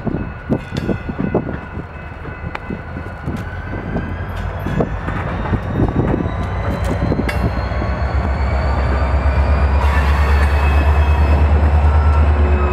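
CSX GP40-2 diesel locomotives shoving a tank car slowly past, with scattered clanks from the wheels and running gear and a faint thin wheel squeal. From about eight seconds in, the locomotive's diesel engine rumble swells and grows louder as the locomotives draw alongside.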